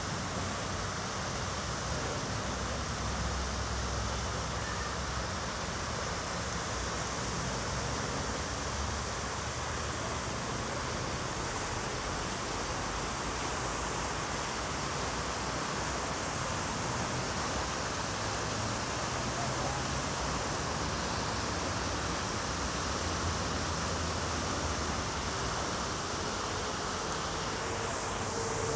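Large outdoor fountain's jets splashing and falling into the basin: a steady rushing hiss of water, with a low rumble underneath.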